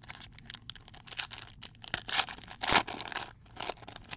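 Foil wrapper of a football trading-card pack being torn open and crinkled by hand: a busy crackle of tearing and rustling foil, loudest a little under three seconds in.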